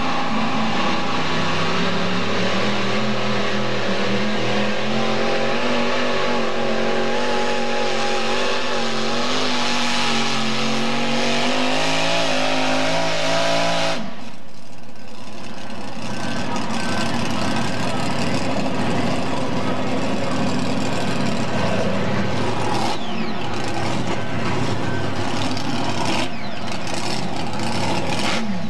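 Mini pulling tractor's engine running hard at high revs under load as it drags a weight-transfer sled, its pitch wavering. About halfway through, the sound changes abruptly to a rougher, noisier engine sound.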